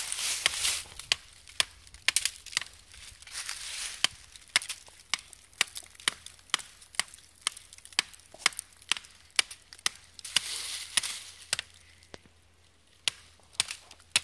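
Servco credit-card axe, its flat steel blade zip-tied to a softwood stick handle, chopping into a thin standing tree: a steady run of sharp blows about two a second, then a short pause and a few more strikes near the end.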